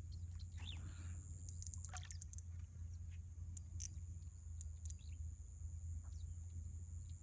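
Quiet outdoor ambience at the water's edge: a low steady rumble and a thin steady high whine, with a few faint bird chirps and soft ticks.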